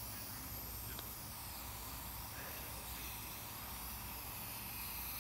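Aerosol spray-paint can spraying onto a styrofoam model airplane: a steady, unbroken hiss.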